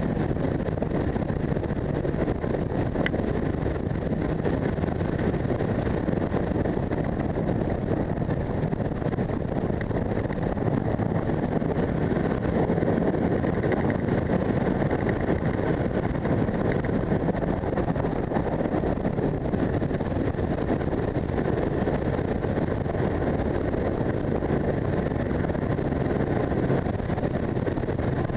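Wind rushing over the microphone of a camera on a moving motorcycle, with the motorcycle's engine running steadily underneath at road speed.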